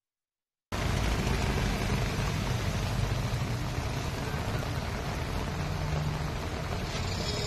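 Road traffic on a waterlogged street: motorbike, car and truck engines running under a steady wash of noise. The sound begins after a split second of silence.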